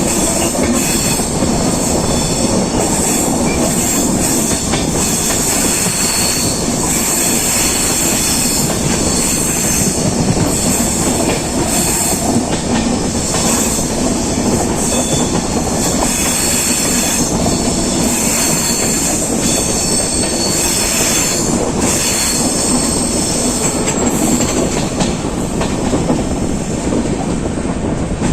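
Passenger train running at speed: a steady rumble of wheels on rails, with a bright high hiss over it.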